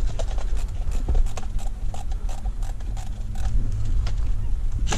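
Irregular crunching footsteps and brush rustling on rough ground, over a steady low rumble of wind on the microphone, with faint voices far off.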